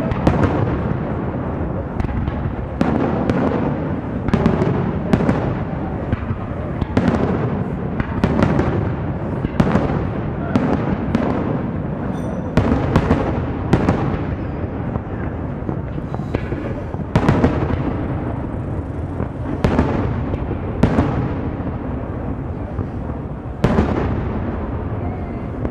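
Aerial firework shells bursting in an irregular string of bangs, about one a second, with a continuous low rumble of echoes between them.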